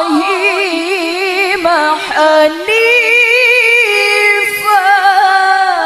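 A woman reciting the Quran melodically into a microphone, drawing out long notes with rapid, quavering ornaments. There is a short break about two and a half seconds in before the next phrase.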